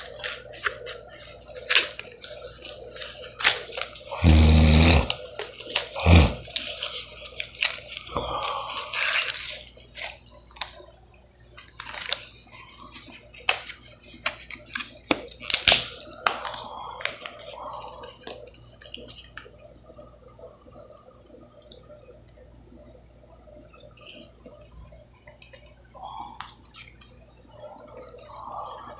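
Paper-backed plastic blister packaging being torn and crinkled open by hand, with scattered crackles and clicks. A loud rustling burst about four seconds in, with quieter, sparser handling in the second half.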